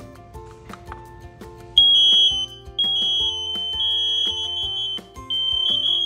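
Interlinked smoke, heat and carbon monoxide alarms sounding their test alarm: a loud, high-pitched piezo beeping starts about two seconds in. The units' tones overlap at slightly different pitches into a near-continuous sound with brief gaps, over background music.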